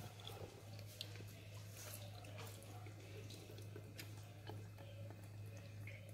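Quiet drips and light clicks as thick chocolate sauce is poured from a pan into a plastic bottle and scraped with a spoon. A steady low hum runs underneath.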